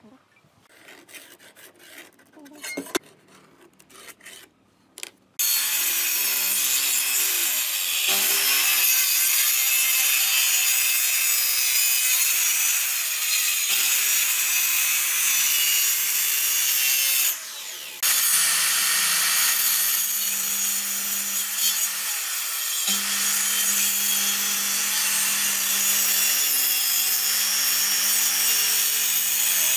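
A few light clicks and knocks, then a Maktec handheld circular saw starts about five seconds in and cuts steadily through a wooden board, its motor humming under the blade noise. The cut eases off briefly for about a second partway through, then the sawing continues to the end.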